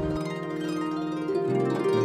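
Background music: slow, held notes that change every second or so.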